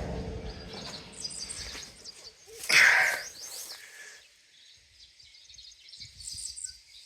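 Birds chirping in the background, with one loud, short sound about three seconds in.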